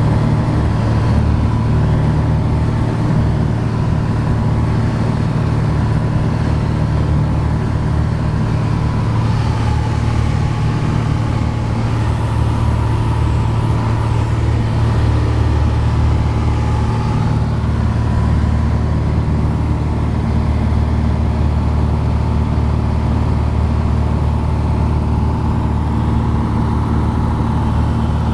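A Piper Dakota's six-cylinder Lycoming O-540 engine and propeller running steadily at cruise, heard inside the cabin in flight.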